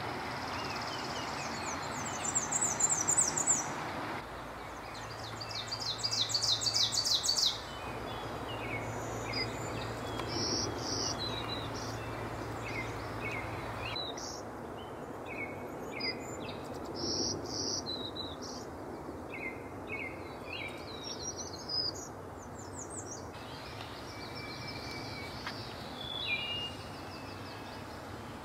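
Several songbirds singing against a steady low background hum. The loudest are two high, thin songs of quickly repeated notes, about two seconds and five seconds in; later come scattered short, high chirps and call notes.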